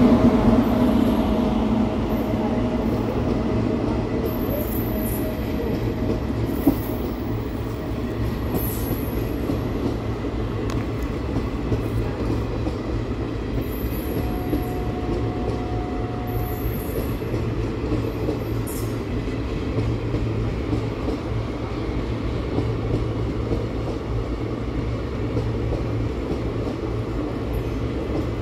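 A WAG-9 electric locomotive passes close at speed with a steady electric hum, loudest in the first couple of seconds. It is followed by a long rake of passenger coaches rushing past with a continuous rumble of wheels on rail.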